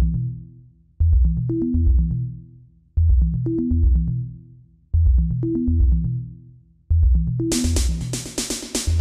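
Electronic background music: a low bass and synth figure that repeats about every two seconds, with hi-hat-like percussion coming in near the end.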